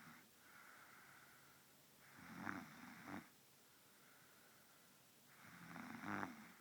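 A sleeping girl snoring: two long snores about three and a half seconds apart, each lasting about a second, with fainter breaths between them.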